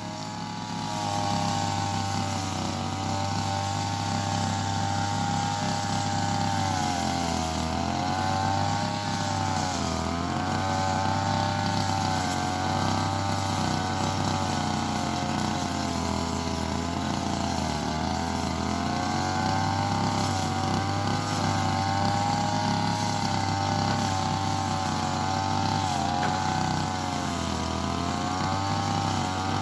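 Brush cutter engine running at high speed, its pitch dipping and recovering several times as the cutting head takes load in the grass.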